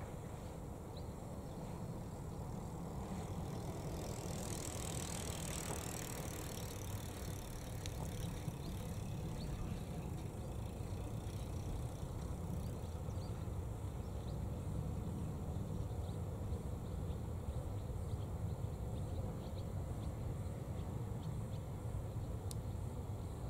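A bicycle riding across the level crossing, faint over a steady low rumble of outdoor background noise.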